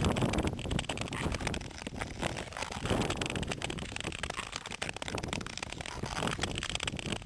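Nordic touring skate blades gliding and scraping over natural lake ice as the skater strides, mixed with wind rushing across the microphone. Louder swells come at the start and again about three seconds in.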